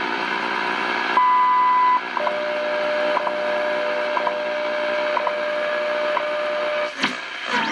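Hallicrafters S-38D shortwave receiver's speaker hissing with band noise. About a second in, a higher steady tone sounds briefly. Then a lower steady tone runs for about five seconds with a tick about once a second, and near the end a quick sweeping whistle comes as the tuning knob is turned.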